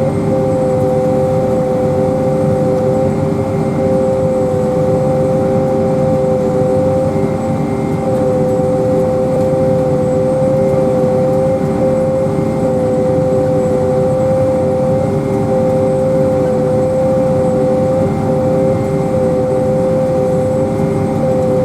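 Pea viner running steadily at work: a constant machinery drone with a steady whine held at one pitch.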